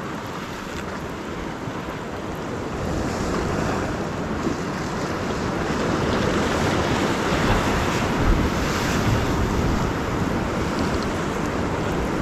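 Ocean surf washing against the rocks, growing louder over the first several seconds, with wind buffeting the microphone.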